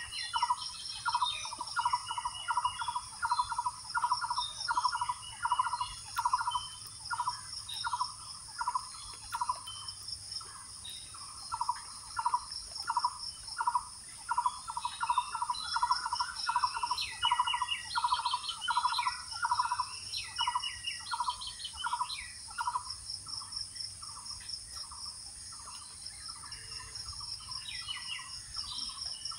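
Woodland ambience: a bird repeats a short call about twice a second, other birds chirp now and then, and insects keep up a steady high drone.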